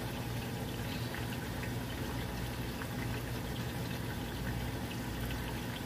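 Steady low hum with a few faint light clicks.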